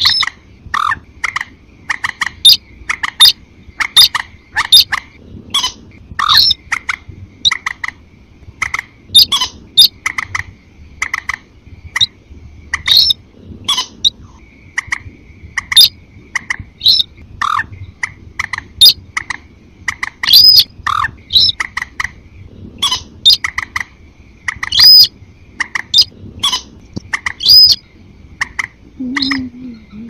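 Bird-lure recording of rail and moorhen calls: a fast run of sharp repeated calls, about two a second, with a few longer whistled calls in the second half. A faint steady high tone runs underneath.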